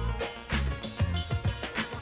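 Background music with a steady beat, a strong bass line and regular drum hits, funk-like in style.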